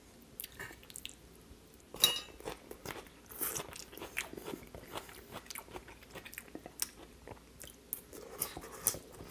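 Close-miked eating sounds: a metal fork clinks once against a ceramic plate about two seconds in, then come soft scattered clicks of chewing and mouth sounds as asparagus is eaten.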